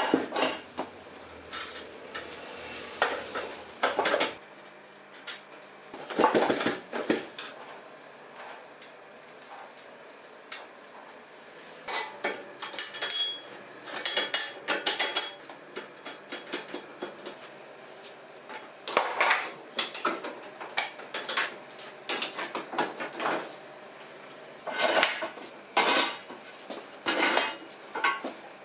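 Metal clinking and clanking in irregular clusters, with quieter gaps between, over a low steady hum.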